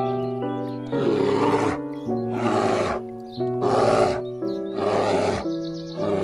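Gentle piano music with five rough growls from brown bears fighting, starting about a second in and coming about every second and a half.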